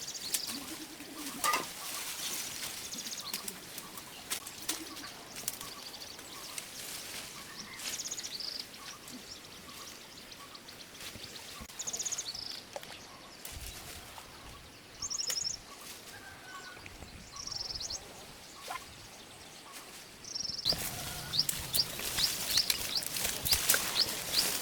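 Birds chirping outdoors in short, separate high calls, with scattered light clicks and knocks. About 21 seconds in, the sound turns suddenly busier, with a rapid run of high ticks and chirps.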